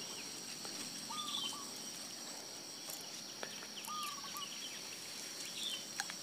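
Faint lakeside ambience: a bird repeating a short wavering call about every three seconds, with a few higher chirps, over a steady high insect drone; a few light clicks.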